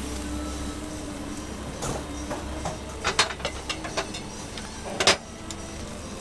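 Cast-iron bungeoppang (fish-shaped bread) molds clicking and clanking as they are closed, turned and opened, over a steady low hum. The clanks come in a quick cluster about three seconds in, with the loudest about five seconds in.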